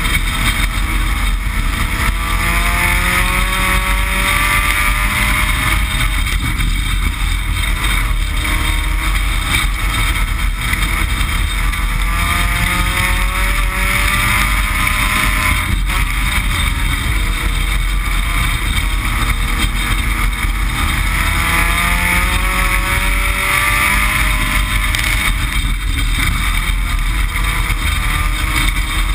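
Dirt-track race car's engine heard loud from inside the stripped cockpit, running hard. Its pitch climbs, then drops back about every nine seconds as the driver lifts off and gets back on the throttle lap after lap.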